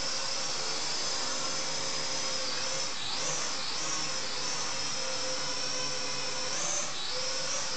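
Snaptain S5C toy quadcopter's small motors and propellers whining steadily in flight. The pitch swings up and down about three seconds in and again near the end.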